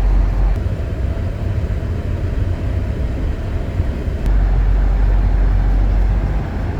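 Steady low rumble of a car driving on a snowy, slippery road, heard from inside the cabin: engine and tyre noise. It eases slightly about half a second in and comes back stronger about four seconds in.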